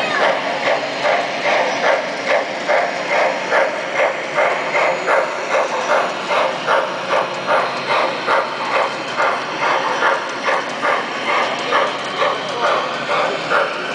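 Three-rail O-gauge model trains running on their track, with a steady rhythmic clatter of about two to three beats a second over a continuous rolling rumble.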